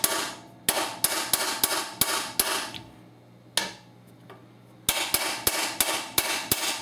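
A hammer tapping the steel shaft of a bearing-and-race driver, driving a new axle seal into the axle tube of a Ford 7.5-inch rear end. The taps come about three a second and pause for about two seconds midway, with one tap in the gap. The tapping note changes as the driver plate meets the axle tube, the sign that the seal is fully seated.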